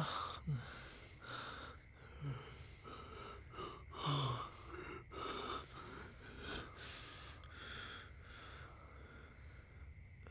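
A man's heavy, ragged breathing: gasps and panting breaths, some with a short falling groan, trailing off after about seven seconds.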